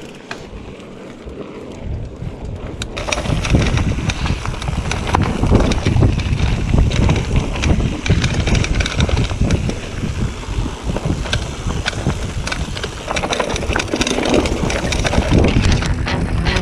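Calibre Bossnut mountain bike descending a dirt and stony forest trail: tyres rolling over dirt and stones, with many small knocks and rattles from the bike over the bumps and wind buffeting the microphone. Quieter for the first three seconds, then louder.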